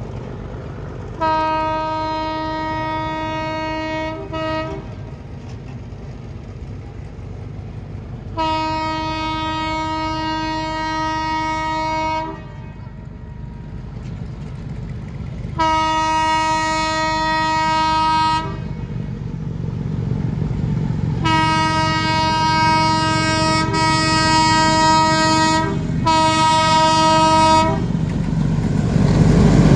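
YDM4 metre-gauge diesel locomotive sounding its horn as it approaches: five long blasts at intervals of several seconds, with two short toots after the first. Beneath the horn, its diesel engine rumbles louder and louder near the end as the train draws close.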